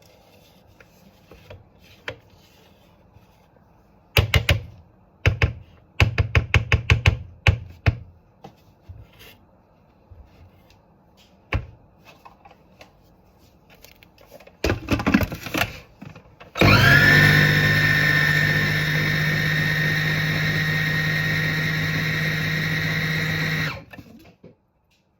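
Food processor pulsed in a series of short bursts, then switched on and run steadily for about seven seconds, spinning up at the start and cutting off abruptly, mixing a cake batter.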